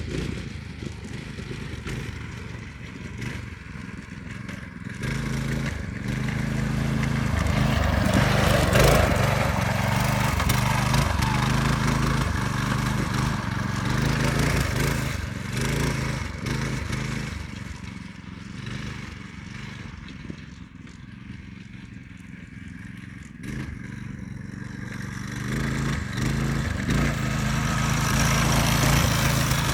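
8-horsepower go-kart engine running as the kart drives laps, its pitch shifting with the throttle. It grows louder as the kart comes near, about six seconds in and again near the end, and fades in between.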